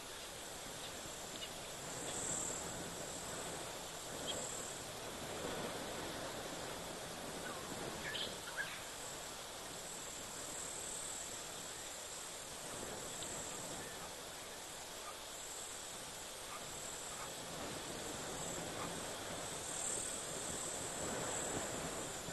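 Night bush ambience: a steady, high-pitched insect chorus that swells and fades, with a few short faint calls, the clearest about eight seconds in.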